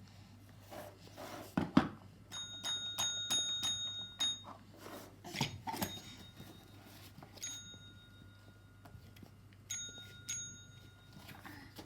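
A small metal bell rung in a quick run of about eight strikes, then rung again a few more times, its clear ringing tones dying away after each. Louder dull knocks come twice, a couple of seconds in and about halfway through.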